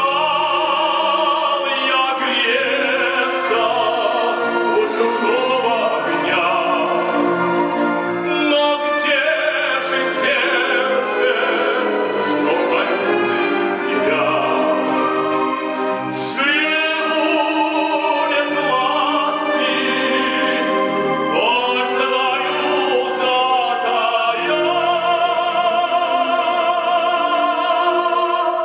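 Operatic singing with a wide vibrato, accompanied by a live orchestra.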